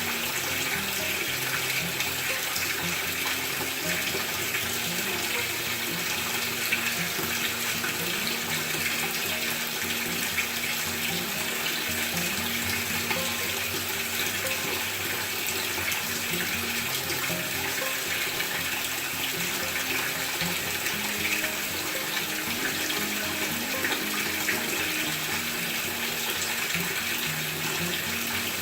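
Water running steadily into a Maytag top-load washing machine's tub as it fills, an even rushing hiss. Soft music with low, stepping notes plays underneath.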